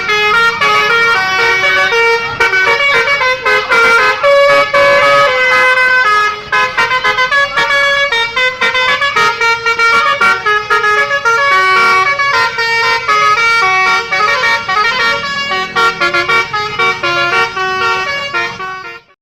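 Basuri v3 telolet bus horn playing a fast melody of short stepped notes, several horn tones sounding together; it cuts off suddenly near the end.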